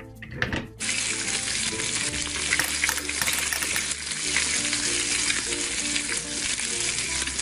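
A few light clicks as the toy steak is flipped in the play pan, then a steady frying sizzle starting about a second in, a sound effect for the pretend steak cooking, over soft background music.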